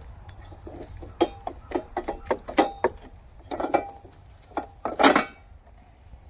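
Loose metal parts being handled and knocked together, about a dozen sharp clinks and knocks, some ringing briefly, with a louder scrape about five seconds in.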